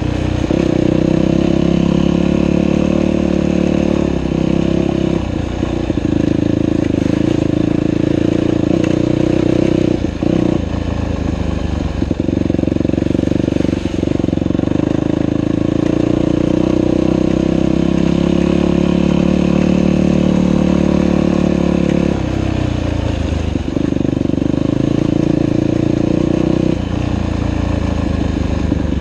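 Dirt bike engine running hard and steadily on a trail ride, with brief drops in the engine note about five and ten seconds in and again past twenty seconds, as the throttle is eased or a gear is changed.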